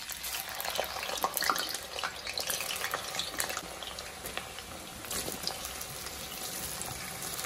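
Raw plantain pieces deep-frying in hot coconut oil in an iron kadai: a dense sizzle full of crackling pops as the pieces hit the oil, with more pieces tipped in from a bowl about five to six seconds in.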